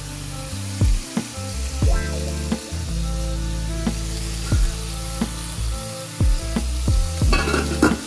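Frying pans sizzling steadily as burger buns toast in butter beside a pan of browned beef patties, under background music with a steady beat. Near the end comes a short clatter as a stainless steel pan lid is handled.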